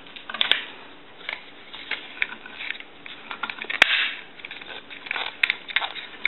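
Parts of a Western Electric 500 rotary telephone being handled as a cover is fitted back onto the dial mechanism: scattered light clicks and scrapes, with one sharper click about four seconds in.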